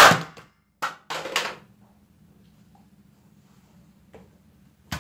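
Spring-powered toy airsoft rifle firing a plastic BB: a sharp snap as it fires and the pellet knocks over a plastic cup, then two short clattering bursts within the next second and a half as the cup falls and rolls. A light click about four seconds in.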